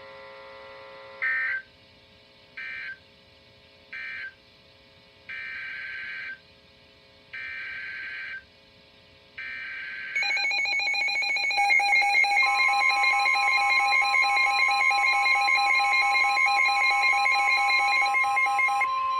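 Weather-radio digital alert codes: three short buzzing data bursts about a second apart, the end-of-message code, then three longer one-second bursts, the coded header of the next warning. About ten seconds in, a loud alarm of several pitches with a rapid flutter begins, and a couple of seconds later the steady 1050 Hz warning-alarm tone joins it.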